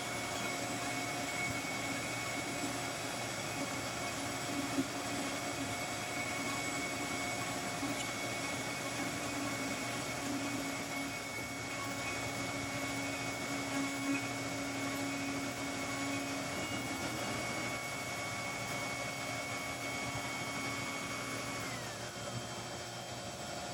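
An electric motor in the shop running steadily with a high whine over a rushing noise; near the end the whine glides down in pitch as the motor winds down, while the rushing noise carries on.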